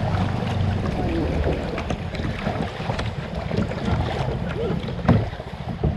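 Wind buffeting the microphone over the water sounds of kayak paddling, with a louder knock or splash about five seconds in.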